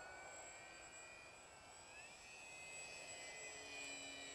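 Faint, steady whine of a radio-controlled model plane's motor and propeller flying nearby, its pitch stepping up about halfway through as the throttle is changed.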